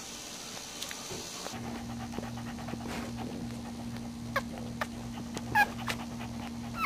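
One-week-old puppies squeaking: a few short, high calls that fall in pitch in the second half, the loudest about five and a half seconds in, over a steady low hum.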